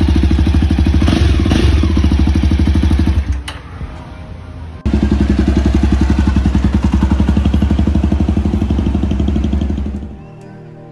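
Jawa Perak's single-cylinder engine running with a steady, rapid exhaust beat, heard in two clips with a short quieter break between them about three and a half seconds in. Near the end it fades out.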